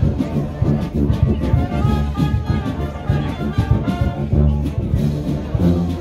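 Marching band playing a march: brass melody over the sousaphones' low bass line, with a steady drum beat.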